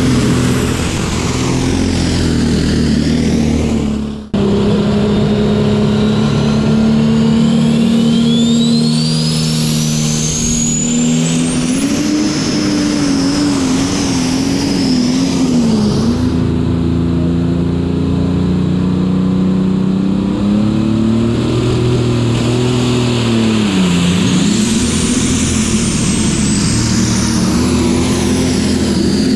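Diesel super stock pulling tractors running flat out under load as they drag the weight sled, with the engine pitch wavering up and down and a high turbo whistle rising over several seconds. The sound cuts abruptly about four seconds in and picks up on another tractor's pass.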